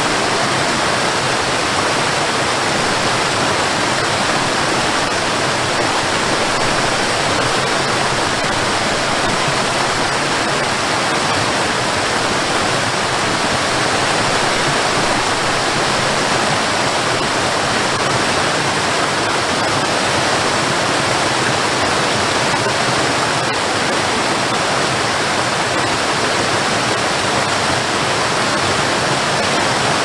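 Waterfall cascading down a series of rock steps: a steady, unchanging rush of falling water.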